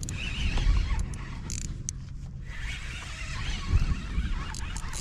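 Wind rumbling on the microphone over a steady hiss of water, with a spinning reel being wound in and a few light clicks.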